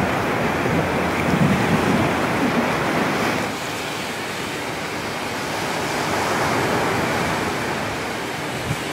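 Wind buffeting the microphone over the steady rush of the sea. The gusty rumble eases and the sound drops a little about three and a half seconds in.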